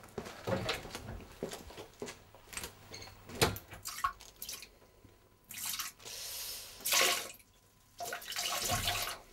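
A person urinating into a toilet bowl. The stream splashes in stop-start spells over the last few seconds, after a run of small clicks and rustles.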